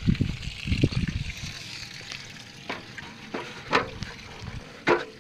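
Water hissing and spraying from a garden hose feeding the boat's sterndrive on a trailer, with low rumbling at first. In the second half, several sharp knocks of footsteps on an aluminium step ladder.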